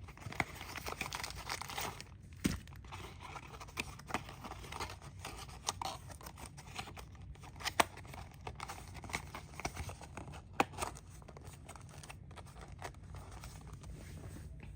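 Toy packaging being opened by hand: irregular crinkling and tearing of cardboard and plastic, with a few sharp clicks, the loudest about two and a half, eight and ten and a half seconds in.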